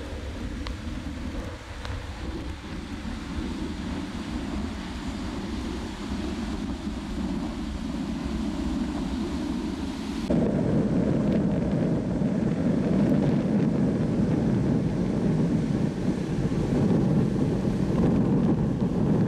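Wind buffeting the microphone over the steady rumble of breaking ocean surf. The sound jumps suddenly louder and deeper about ten seconds in.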